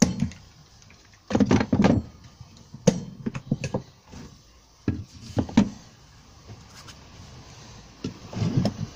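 A block of timber and a Domino jointer being handled and set against a wooden bench top: irregular knocks and bumps in several short bursts, with no machine running.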